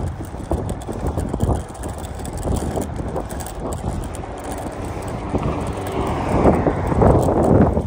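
Riding noise from a drop-bar road bike on a paved path: wind buffeting the microphone, tyre hum and small rattles from the bike. A louder rush builds about six seconds in and peaks near the end.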